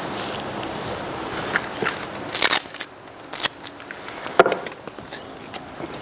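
Crackling, rustling plastic sheeting as self-adhesive flashing membrane is rubbed and pressed by hand onto housewrap, followed by a few short, sharp knocks and rustles as tools and a tape roll are handled.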